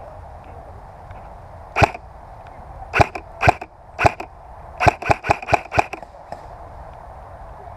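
Airsoft guns firing single sharp shots: a few spaced shots, then a quick string of about six shots about five seconds in.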